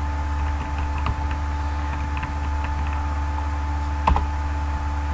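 Computer keyboard keystrokes, a few scattered clicks with a sharper one about four seconds in, over a steady low electrical hum.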